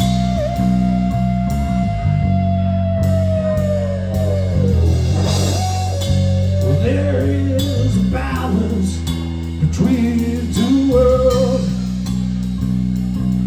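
Live blues-rock band playing with drum kit, bass and electric guitar. A long held note near the start wavers slightly and then slides down in pitch, and a busier melodic line follows over the steady backing.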